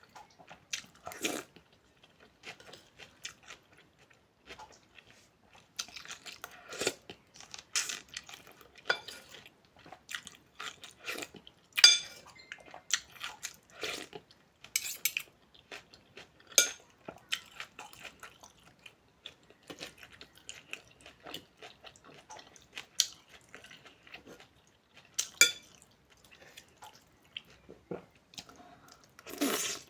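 Eating from a bowl of noodles: utensils clinking irregularly against the bowl, with chewing in between.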